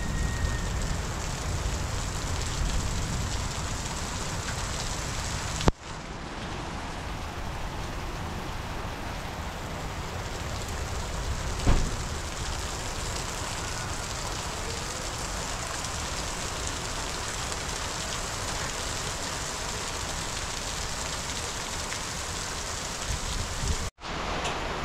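Heavy rain pouring down in a steady hiss, with a single sharp knock about twelve seconds in.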